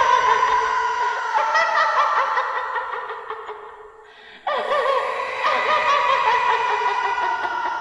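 High-pitched warbling tones from the treble test of a DJ sound-check track. They fade down about three to four seconds in and cut back in suddenly about half a second later.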